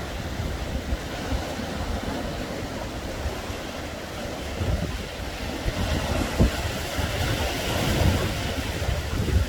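Sea waves breaking and washing on the shore, with strong wind buffeting the microphone in low gusts. A wave's wash swells to a louder hiss near the end.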